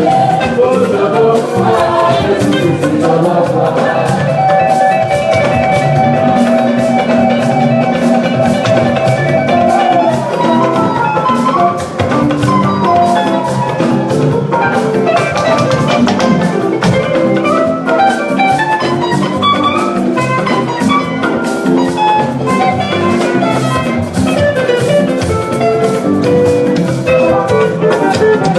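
Live church band music: a mostly instrumental passage of the choir anthem, with a pitched melody line and held notes over drum kit and percussion.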